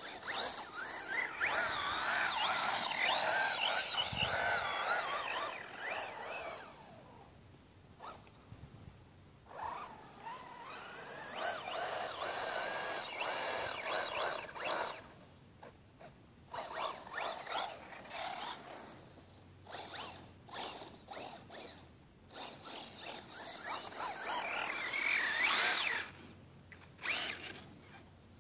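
Axial Exo RC buggy's electric motor and drivetrain whining in bursts as the throttle is worked, the pitch swooping up and down. There is a long run at the start and another in the middle, then short stuttering blips and a final rising run near the end.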